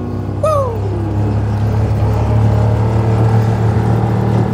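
John Deere Gator utility vehicle engine running steadily under load while its zip-tie-wrapped rear tyres spin in snow. About half a second in, a voice whoops a long 'woooo' that falls in pitch.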